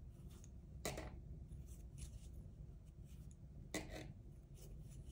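Wooden knitting needles and yarn being worked through knit stitches: faint rubbing and light ticks, with two sharper clicks, one about a second in and one near four seconds.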